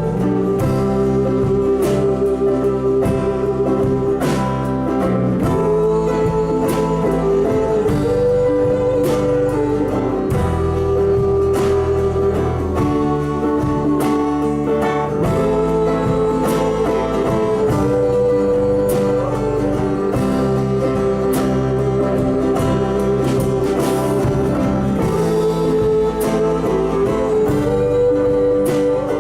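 Live band playing an instrumental break: a lead instrument carries a sustained melody with sliding notes over guitar chords and a steady beat.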